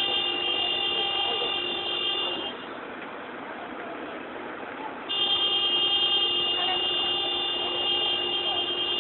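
A car horn sounding with a steady, unbroken tone. It cuts out about two and a half seconds in and starts again about five seconds in.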